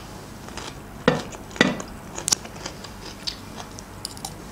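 Close-miked eating sounds of someone chewing dolma, stuffed grape leaves: wet mouth clicks and smacks, with a few sharper clicks a little over a second, about one and a half seconds and just over two seconds in.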